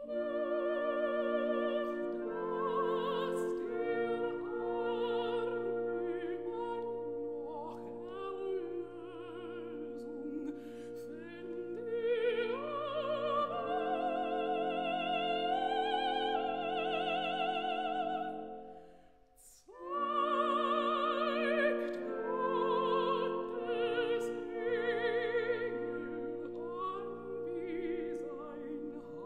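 Operatic soprano singing with a wide vibrato over a full orchestra. The music comes in suddenly out of silence, dies away briefly about two-thirds of the way through, then soprano and orchestra come back in loudly.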